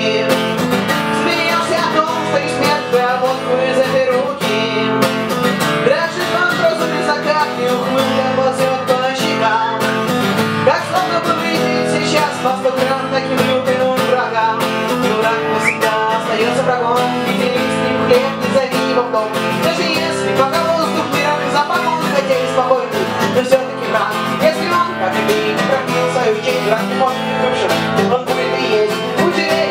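Strummed acoustic guitar accompanying a woman's singing voice in a live song.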